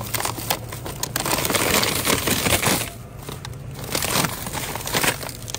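Crinkling and rustling as something crinkly is handled and crumpled, in two stretches with a short lull about three seconds in.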